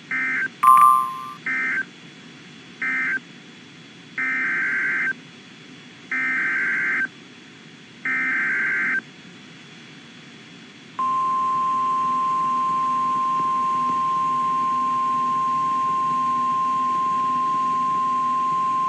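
NOAA Weather Radio alert signalling. First come three short pulses of SAME digital data, the end-of-message code closing the previous warning, with a brief loud beep about a second in. Then three longer pulses of SAME header data, each about a second. From about eleven seconds in, the steady single-pitch 1050 Hz weather radio warning alarm tone sounds without a break.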